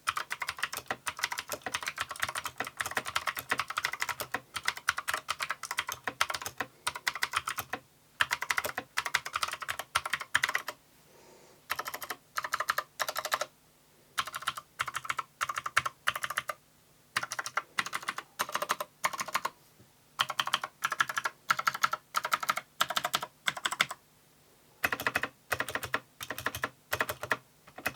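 Typing on an Akko 3096 World Tour Tokyo mechanical keyboard with clicky Akko blue switches: fast runs of key clicks in bursts of a few seconds, broken by short pauses.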